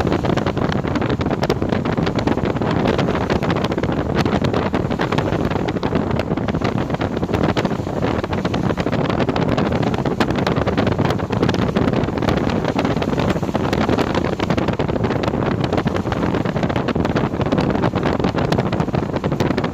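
Storm wind on a phone's microphone: a steady, loud rushing noise with a dense scatter of small ticks.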